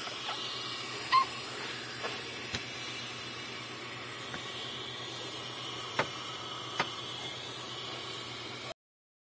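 Steady airy hiss of air flow in a NICU incubator, with a few faint clicks and a brief high squeak about a second in. The sound cuts off shortly before the end.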